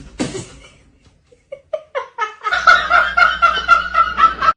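A rising run of short notes, then about two seconds of fast, busy music that cuts off suddenly at the end.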